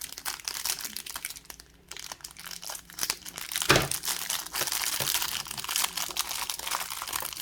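Thin plastic packaging bags crinkling and rustling as small items are handled and unwrapped, with a short pause and a single thump about halfway through.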